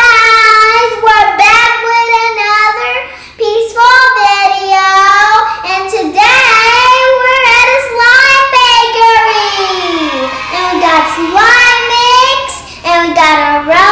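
A child singing, one high voice holding long notes that slide up and down.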